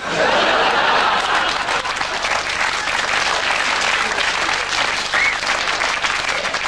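Audience applause breaking out suddenly all at once and continuing loud and dense.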